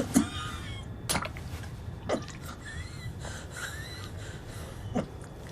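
Film soundtrack: a low steady hum with a few sharp sudden noises scattered through it, about a second apart at first and again near the end, and faint short breathy sounds.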